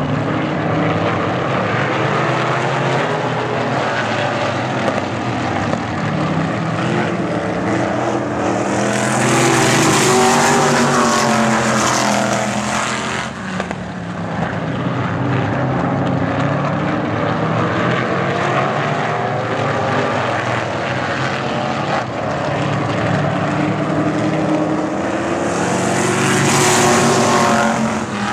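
A field of vintage caged sprint cars racing on an oval, several engines running hard at once and rising and falling in pitch. The sound swells louder twice, about ten seconds in and again near the end, as the pack passes close.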